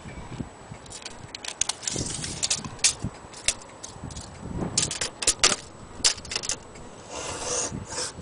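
Irregular sharp clicks and rattles of a metal tape measure being handled against a wooden clock case, with a short rasp near the end as the tape blade is pulled out.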